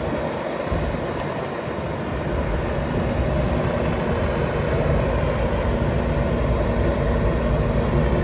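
Bobcat T770 compact track loader's four-cylinder diesel engine running steadily, its low rumble filling in and growing slightly louder after about two seconds.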